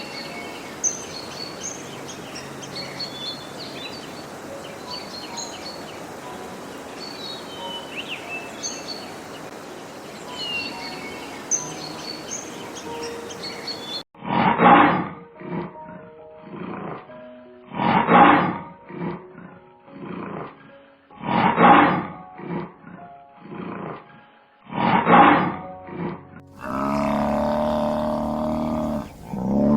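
Small birds chirping over a steady background for the first half. Then, after a sudden change, a lion roars: a series of about five loud roars roughly three to four seconds apart, with quieter grunts between them. A low, drawn-out call begins near the end.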